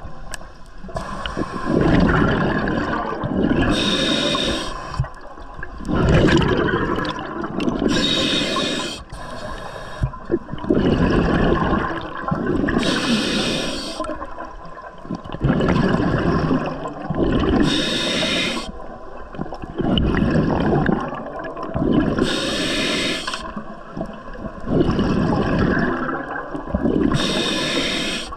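Scuba diver breathing through a regulator underwater: a short hiss on each inhale, then a longer gurgling rush of exhaled bubbles, about one breath every four to five seconds.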